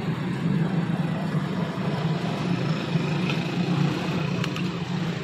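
A motor running steadily with a low hum, with a couple of faint clicks about three and four and a half seconds in.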